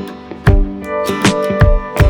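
Background music: an acoustic guitar strumming, with a steady beat.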